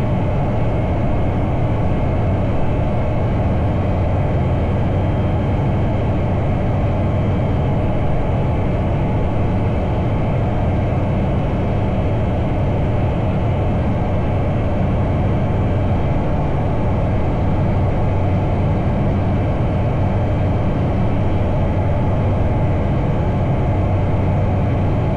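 Bristell Classic light aircraft's piston engine and propeller droning steadily in flight, heard from inside the cockpit.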